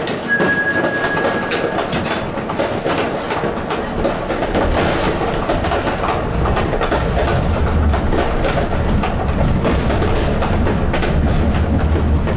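Light-rail Stadtbahn car rolling through a track junction, its wheels clattering over switches and crossings in many short clicks, with a low running rumble that grows from about four seconds in as it picks up speed. A short steady beep sounds near the start.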